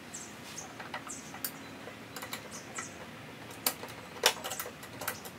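Irregular small clicks and taps of hard plastic and metal parts (caps, clips and connectors) being handled and pressed into place in a car's engine bay, with a sharper click about four seconds in.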